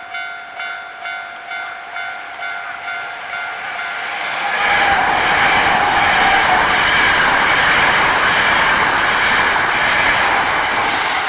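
Railway level-crossing warning bell ringing in repeated electronic dings, a little under two a second. About four and a half seconds in, an eight-car Hankyu 9300 series train passes at speed. Its loud rushing wheel-and-rail noise covers the bell, which keeps ringing beneath it.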